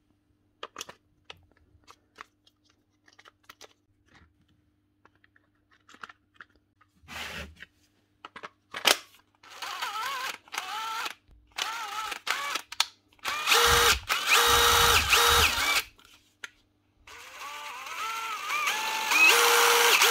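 Light clicks of plastic and metal parts being fitted together, then a DeWalt 18V XR brushless impact driver run in short trigger pulls, its motor speeding up and slowing down. It is being tested after a trigger switch repair. Partway through comes a louder, longer run with a deep rumble, and near the end come longer runs held at steady speed.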